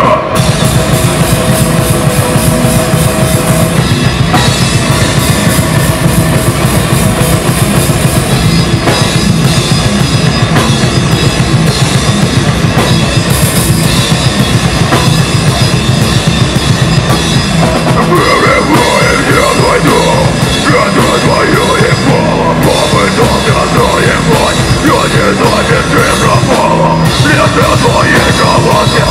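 A deathcore band playing live at full volume: distorted electric guitars, bass and a pounding drum kit, dense and continuous, with a vocalist screaming over it.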